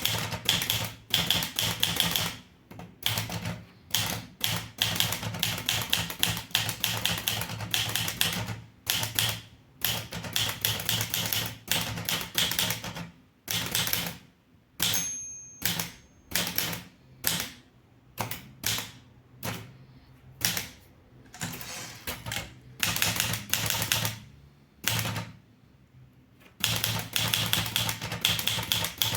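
Underwood 315 typewriter being typed on: quick runs of key strikes, broken by short pauses. A brief faint ringing tone sounds in one pause about halfway through.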